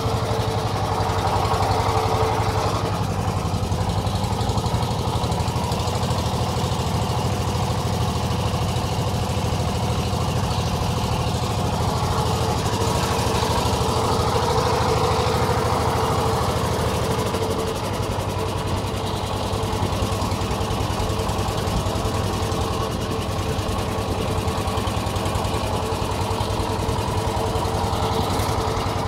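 A wooden river boat's engine running steadily under way, with an even low beat, easing off slightly about two-thirds of the way through.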